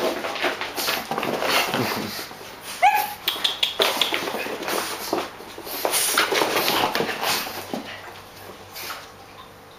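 Small dogs, a chihuahua–Jack Russell terrier cross and pugs, play-fighting on carpet: irregular scuffling and dog vocalising, with one short high cry about three seconds in. It gets quieter near the end.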